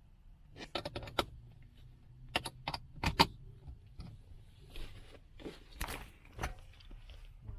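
Handling noises: quick clusters of sharp clicks and clacks, the loudest about three seconds in, followed by softer knocks and rustling.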